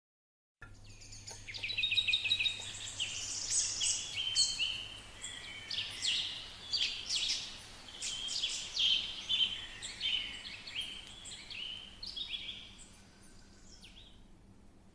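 A chorus of small birds chirping and twittering, with many short, rapid calls overlapping. It starts abruptly about half a second in and thins out near the end, over a faint steady hum.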